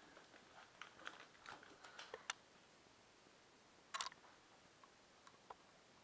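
Near silence broken by faint scattered clicks and rustles of a handheld camera being moved, with a sharper click about four seconds in.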